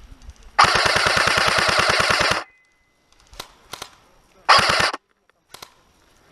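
Airsoft gun firing on full auto: a long burst of about two seconds at roughly a dozen shots a second starting about half a second in, then a couple of single cracks, then a short burst near the five-second mark.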